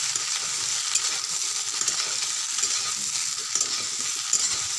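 Potato and brinjal slices sizzling in oil in a kadhai over medium heat, with a steady hiss, while a metal spatula stirs them, scraping and clicking against the pan.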